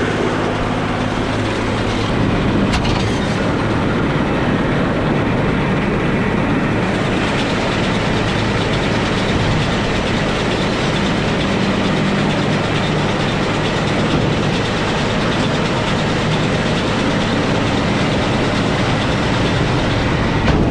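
Deutz D130 06 tractor's diesel engine running steadily with the John Deere 566 round baler working behind it, a continuous mechanical clatter. A single short click about three seconds in.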